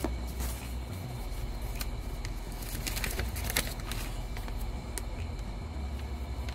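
Plastic wrapping and paper being handled, rustling with several sharp crinkles, the densest a little past halfway, over a steady low hum.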